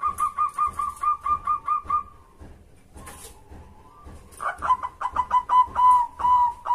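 Zebra dove calling: a fast run of short coo notes, about six a second, for two seconds. After a pause a second run begins, and its notes draw out into longer coos.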